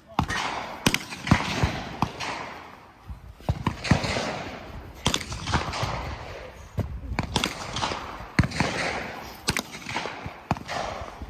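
Gunfire at a shooting range: about fifteen sharp shots at irregular spacing, roughly one or two a second and some in quick pairs, each trailed by a rolling echo.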